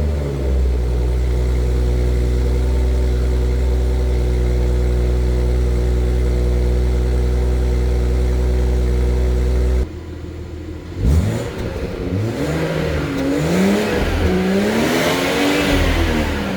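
BMW 540i's B58 turbocharged inline-six through a Dinan Free Flow axle-back exhaust, holding a steady idle for about ten seconds. After a cut, the engine is revved in several blips that climb and fall in pitch, each rev reaching a little higher than the one before.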